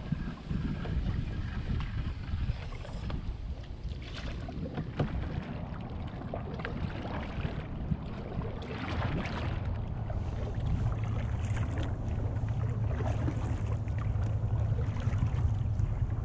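Canoe paddling: paddle strokes splashing and dripping in the water, with wind rumbling on the microphone throughout.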